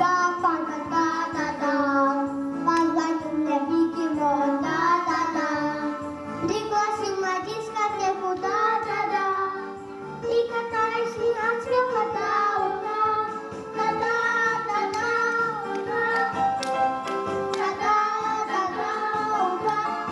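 A child singing a song into a microphone over backing music with a steady beat.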